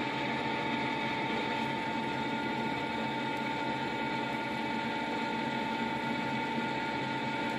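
Colchester Bantam 1600 lathe running in screw-cutting mode, its gear train driving the carriage while a single-point tool cuts a 1.0 pitch thread. A steady mechanical whir with a constant high whine throughout.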